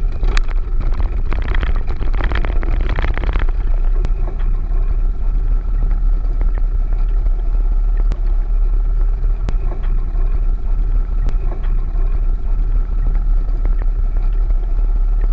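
Small boat's outboard motor running with the boat underway, heavy wind rumble buffeting the microphone, and a few sharp knocks along the way.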